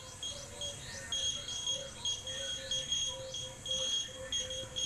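Radex radiation dosimeter beeping on its detector counts: short, high beeps in quick, irregular succession, several a second, some running together. The count rate reflects a dose rate of about 0.76 microsieverts per hour, about eight times natural background.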